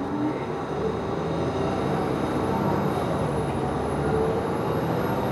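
Interior sound of a Nova Bus LFS city bus under way: a steady drone of engine, drivetrain and road noise that grows louder over the first couple of seconds, with faint gliding tones over it.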